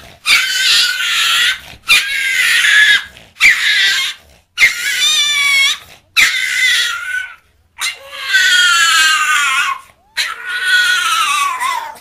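A pet animal giving long, loud, high-pitched cries, about seven in a row with short breaks between them. The later cries slide down in pitch.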